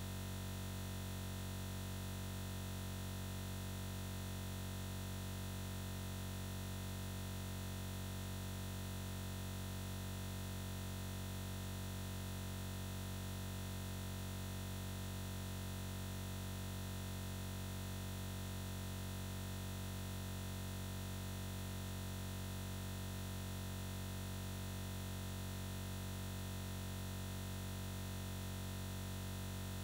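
A steady, unchanging electronic buzz, strongest low in pitch with many fixed tones above it and no change at all: the sound of a stalled, glitching recording rather than anything in the room.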